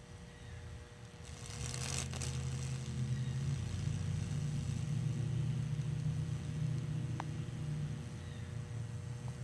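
A microwave oven transformer hums loudly under load as it burns a Lichtenberg figure. The hum swells up about a second and a half in, alongside a short burst of hissing, crackling noise, and there is a single click near the end.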